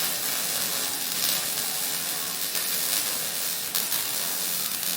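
MIG welding arc running a continuous bead: a steady crackling hiss.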